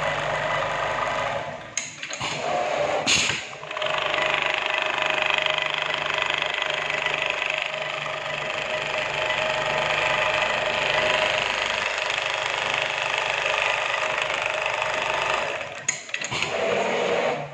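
Computer-controlled pattern sewing machine running steadily at speed as it stitches a bag panel held in a template. There are brief breaks with short sharp sounds about two and three seconds in and again near the end.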